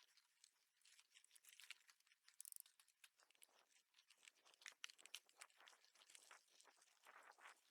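Faint, irregular crunching and crackling with a brief rattle about two and a half seconds in.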